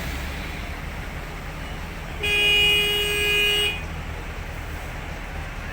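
A vehicle horn sounds one held blast of about a second and a half, about two seconds in, over a steady background of road noise.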